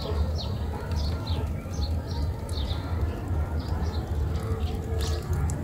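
Small birds chirping, short high chirps two or three times a second, over a steady low rumble.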